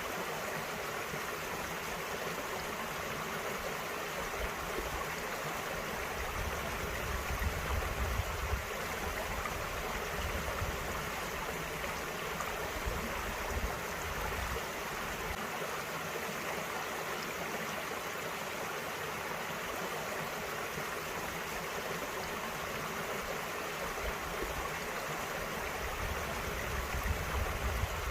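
Small mountain stream flowing over rocks, a steady rushing and gurgling of water, with a low rumble rising and falling in places.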